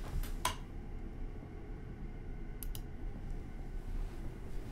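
Quiet room tone with a steady low hum, broken by a sharp click about half a second in and a quick double click near the middle.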